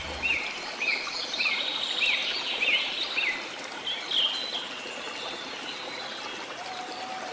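Birds chirping over a running stream: a string of short chirps, each rising then falling, about two a second for the first three seconds, then a few higher calls, all over a steady trickling hiss of water.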